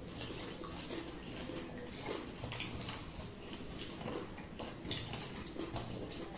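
Close-up eating sounds: wet chewing and lip smacks with many short clicks as rice and chicken curry are mixed and eaten by hand.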